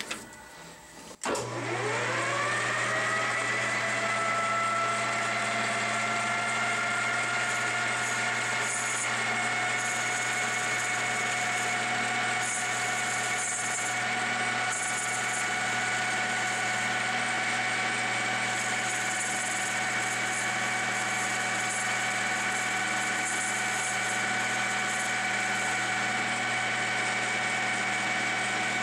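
13x40 metal lathe starting about a second in, its motor and spindle whine rising as it spins up and then running steadily, with a hiss coming and going as a carbide tool turns a brass fitting. The speed is set to 2,000 rpm, but the owner has a feeling the drive belts are slipping badly and it is not reaching that speed.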